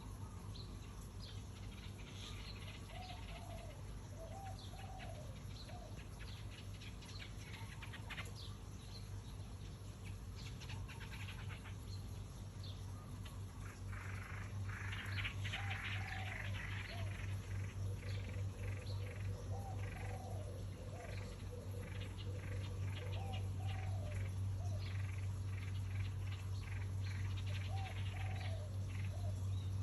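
Small birds chirping: many short, high chirps in quick runs that get busier and louder about halfway through, with a few lower rising-and-falling calls, over a steady low hum.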